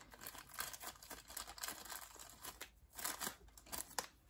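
Clear plastic bag crinkling and rustling in irregular crackles as a resin model part is worked out of it, with a couple of sharp taps about three and four seconds in.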